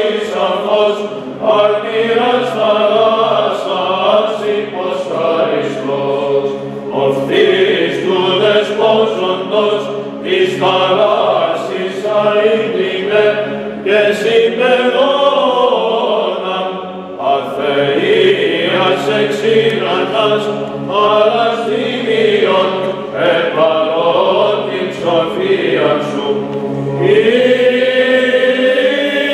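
Male chanters singing Byzantine chant, the aposticha in plagal first mode. The melody moves continuously over a steady low held drone, the ison.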